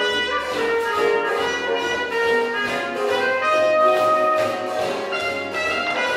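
Swing jazz song playing, with horns holding long notes.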